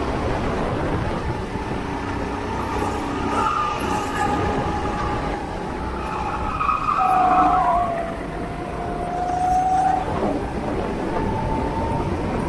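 Go-kart engine running hard, its pitch falling about halfway through and then climbing again, over a steady rushing noise.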